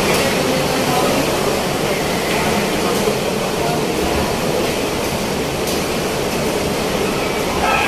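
Typhoon-force wind blowing steadily against a building's glass lobby doors, heard from indoors as a continuous rumbling roar, with a few faint clicks.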